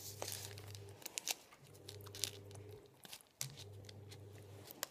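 Chewing milk chocolate close to the microphone: scattered small clicks and crinkles, over a low steady hum that comes and goes in stretches of about a second.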